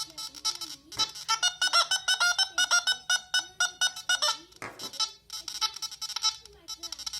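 Background music: a quick melody of short, bright notes over a low, wandering line.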